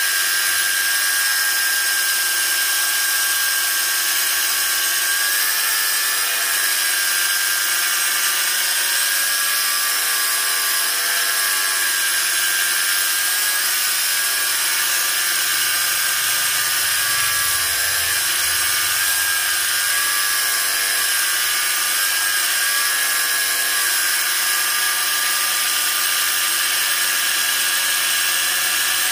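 Cordless angle grinder with an abrasive cut-off disc cutting into 4–5 mm steel plate, running steadily under heavy load. The battery pack keeps up and the grinder does not cut out.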